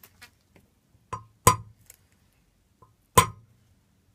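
Three sharp metal-on-metal hammer blows on a drift, each ringing briefly, driving a new tapered wheel bearing race into the VW T3 Vanagon's brake disc hub. Two blows come close together about a second in, and a third comes about three seconds in.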